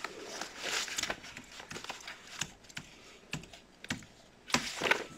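Laptop keyboard keys tapped in short, irregular keystrokes, with a louder rustling burst near the end.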